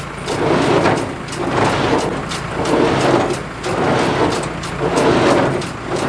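New Holland 273 Hayliner wire-tie square baler running off a tractor's power take-off, clattering in a steady rhythm that surges about once a second, over the steady hum of the tractor engine.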